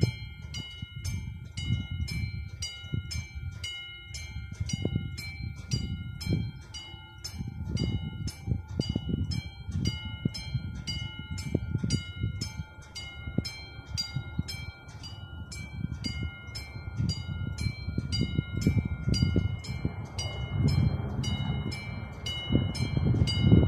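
Level-crossing warning bell ringing in an even, fast repeat, several strikes a second, from the signal's electronic 'classic' bell unit. Wind buffets the microphone in uneven gusts, heavier near the end.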